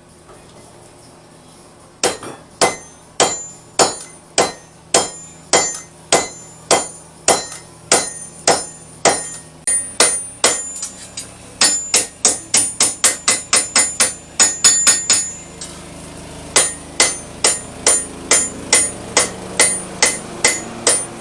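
Blacksmith's hammer striking hot steel on an anvil, drawing out the handle of a smatchet blank. After about two seconds, steady blows begin at about two a second, each with a bright ring. Partway through they quicken to a fast run of blows, stop briefly, then go on at the steady pace.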